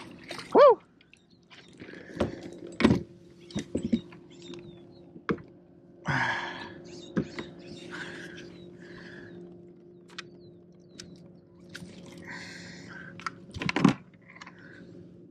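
A landing net holding a largemouth bass being handled aboard a plastic pedal kayak: scattered knocks of the net frame and gear on the hull and short scuffling rustles of the fish in the net. A short pitched chirp about half a second in is the loudest sound, and a faint steady low hum runs underneath.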